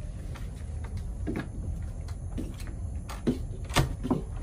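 A room door being handled and opened: a few scattered clicks and knocks, the loudest near the end, over a steady low rumble.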